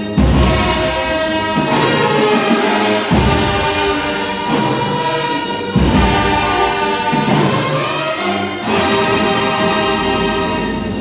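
Marching band brass section of sousaphones and trumpets, with saxophones, playing long, full sustained chords. Heavy accented hits come every few seconds.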